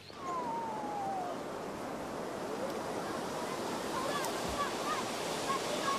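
Steady rush of water washing like small waves at a shore. A single falling whistle-like call comes near the start, and a few faint short chirps come in the second half.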